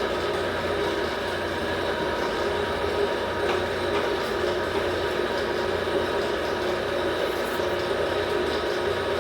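A powered workshop machine running steadily: a continuous hum with a few steady tones over it.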